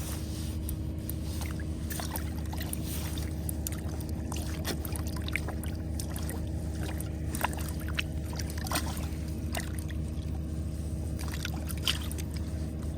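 A steady low mechanical hum with a faint constant tone above it, and scattered light clicks and ticks over the top.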